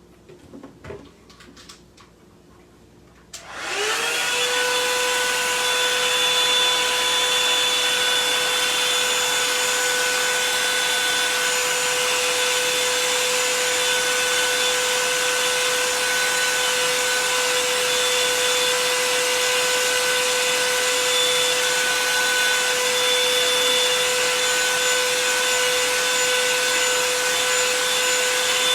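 Handheld hair dryer switched on about three and a half seconds in, its motor whine rising quickly to a steady pitch and running on with a steady rush of air.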